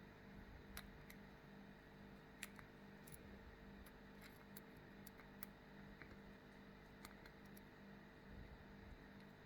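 Faint, irregular small clicks of a tubular lock pick working the pins of a SAG 5-pin stainless steel tubular padlock under tension, over a faint steady hum.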